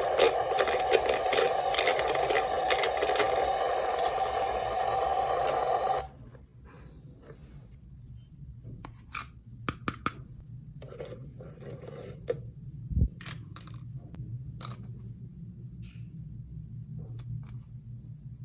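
A toy's steady buzzing tone with clicks over it, cutting off suddenly about six seconds in; then scattered light clicks and taps of small plastic toy pieces being handled.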